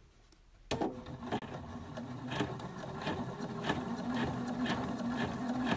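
Domestic sewing machine starting up after a short pause and running steadily, topstitching an overlocked seam flat, with a steady hum and light clicking from the needle.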